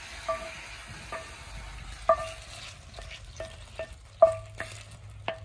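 A metal cooking utensil stirring and knocking against a frying pan: about nine sharp knocks that each ring briefly at the same pitch, the loudest about two and four seconds in, over a faint sizzle of food frying.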